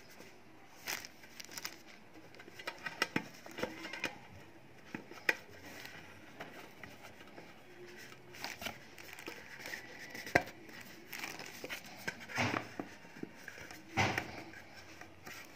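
Hands turning over and handling a small printed watch box while trying to open it: scattered light taps, knocks and rustles. There is one sharp tap about ten seconds in and brief rustling near the end.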